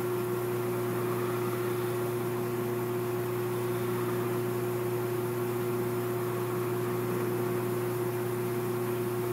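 A 15-inch metal lathe running steadily with an even mechanical hum while a carbide radius cutter takes a light skim cut on the rounded end of the work.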